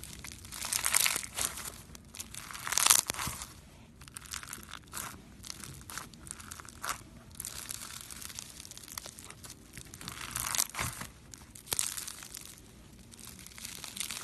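Crunchy slime being squeezed and worked by hand, making crinkly crackling crunches in uneven bursts with sharp little pops. It is loudest about three seconds in and again around eleven seconds.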